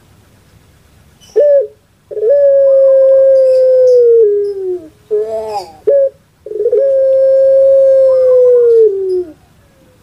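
Caged puter pelung (Barbary dove, Streptopelia risoria) giving its long-drawn coo: a short opening note, then a long steady coo held for over two seconds that drops in pitch at the end, a short rising-and-falling note, and a second long coo that drops the same way.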